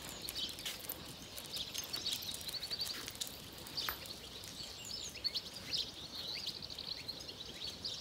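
Small birds chirping and calling, many short high notes overlapping, with a quick trill of repeated notes about two and a half seconds in, over a faint outdoor hiss.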